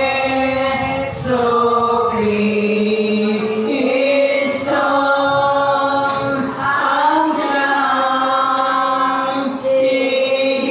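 A small group of women singing a gozos, a Filipino devotional hymn of praise to a saint, in long held notes. The phrases last a few seconds each, with short breaks between them.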